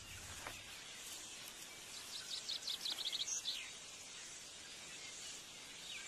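Faint natural ambience of the bush: a steady hiss, with a short run of rapid, high chirps about two seconds in.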